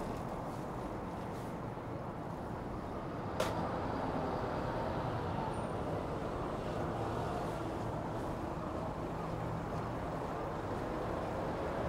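Steady city road traffic, cars and buses passing on a busy avenue, with a single sharp click about three and a half seconds in.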